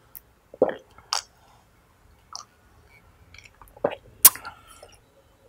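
Close-up swallowing of a drink from a glass mug: two deep gulps about three seconds apart, with wet mouth clicks and lip smacks between them, the sharpest click near the end.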